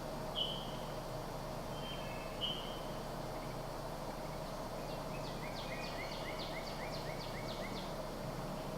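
A small bird singing: two short high chirps, then a rapid series of repeated short descending notes, about four a second for some three seconds, over a faint steady low hum.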